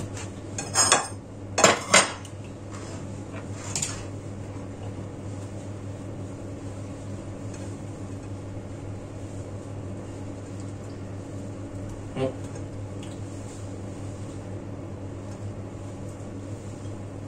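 Kitchenware clinking and knocking: a few sharp clanks in the first four seconds and one more about twelve seconds in, over a steady low hum.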